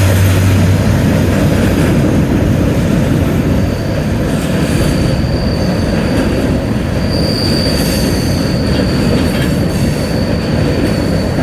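Freight train cars rolling past: a steady heavy rumble with wheel clatter, and a thin, high wheel squeal that sets in about three seconds in and grows louder about halfway through.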